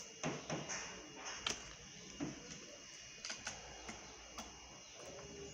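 Scattered light clicks and taps from fingers working on an opened Samsung Galaxy J7 Prime smartphone: pressing on its board and battery and handling its small parts.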